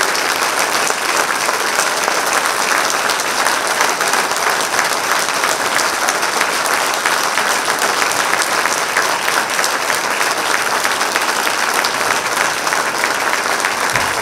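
Large audience applauding, a dense, steady clapping that holds at full strength.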